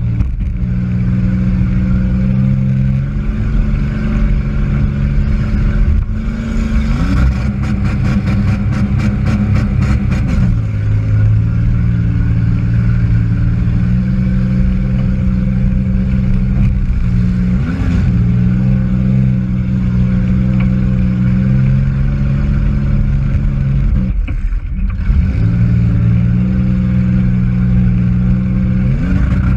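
Demolition derby car's engine running hard, heard from inside the cabin, revving up and falling back several times. A rapid rattling comes in for a few seconds about a quarter of the way in, and the engine note dips briefly near the end.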